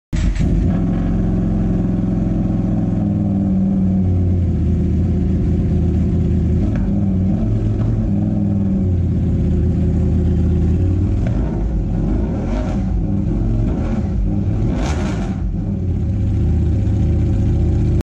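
Ducati Panigale V4's V4 engine running through an SC Project titanium exhaust, revved up and down several times on a stand.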